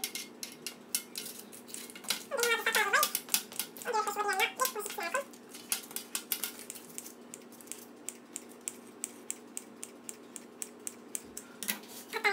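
Kitchen scissors snipping notches into the rim of pizza dough, a quick run of small clicks that thickens in the second half. Two drawn-out, wavering calls, each about a second long, stand out in the first half.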